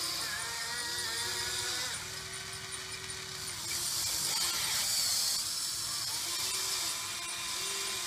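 Huina 580 RC excavator's small electric motors whining in spells of a second or two as the boom, arm and bucket move through a dig. Each spell bends up or down in pitch as it starts and stops, with a louder hiss about halfway through.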